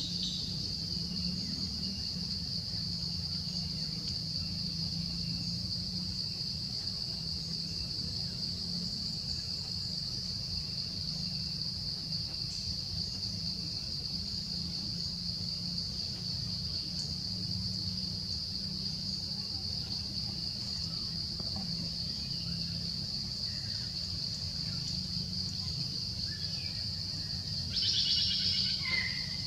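Steady, shrill insect chorus holding one high pitch throughout, over a low rumble. Near the end there is a brief louder, higher sound that falls in pitch.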